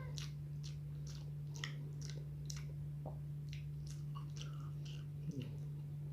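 A person chewing food close to the microphone, with wet mouth clicks and smacks about twice a second, over a steady low hum.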